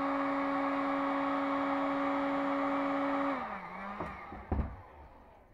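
Hand-held heat gun blowing steadily, its fan motor humming under the rush of hot air as it softens a thin plastic sheet for blister forming. About three seconds in it is switched off and the fan winds down with a falling hum, followed by a short knock.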